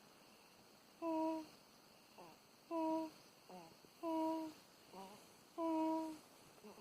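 Newborn baby, under a month old, snoring in sleep: a short humming tone on each breath, four of them about a second and a half apart, with fainter squeaky breath sounds in between.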